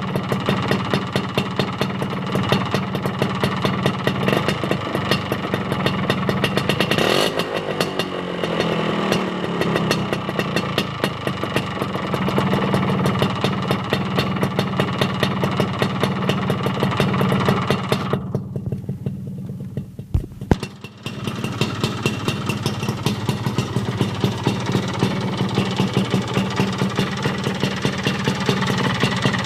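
Vespa 50 Special's two-stroke single-cylinder engine running through an aftermarket Proma exhaust, a fast steady beat of firing pulses. The pitch shifts briefly about a quarter of the way in. About two-thirds of the way through, the sound drops away and dulls for about two seconds. The owner believes the engine carries a 75 cc cylinder kit.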